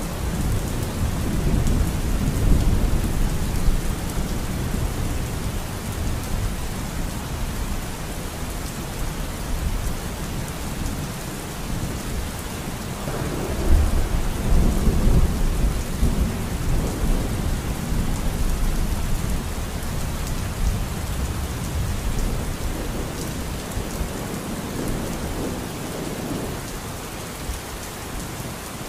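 Steady rain with low rolling thunder, the rumble swelling louder about halfway through.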